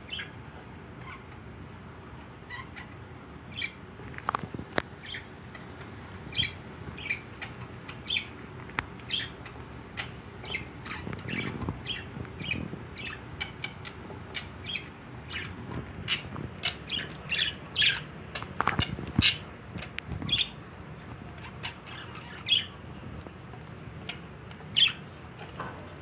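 Caged budgerigars (parakeets) chirping: many short, high chirps at irregular intervals, busiest in the middle stretch, with a few louder calls there and near the end.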